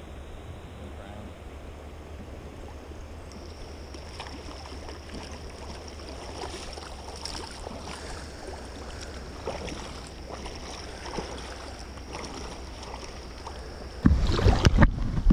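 Shallow river running, with wind rumbling on an action camera's microphone and a few faint ticks. About fourteen seconds in it turns much louder: close, uneven buffeting and knocks right at the microphone.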